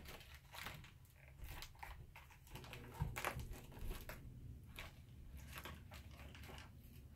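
Stiff plastic blister packaging being cut and pried open with a blade, giving faint, irregular crackles and crunches of the plastic.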